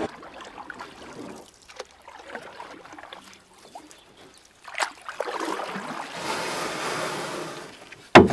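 Sea waves washing and surging, the wash swelling about five seconds in, with a sharp knock just before the end.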